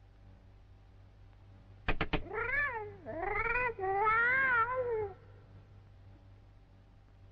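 Three quick sharp taps, then a cat meows three times, each meow drawn out and bending up and down in pitch, the last one the longest.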